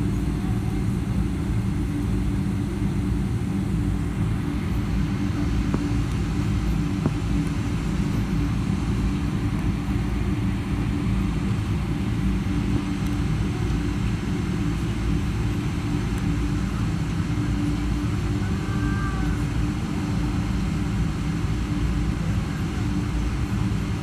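Boeing 777-300's jet engines at taxi power, heard inside the passenger cabin: a steady low rumble with a constant hum.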